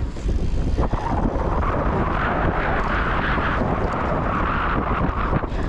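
Wind rumbling on the microphone and the rattle of a cyclocross bike being ridden over rough ground, with a steady rushing hiss from about a second in until near the end.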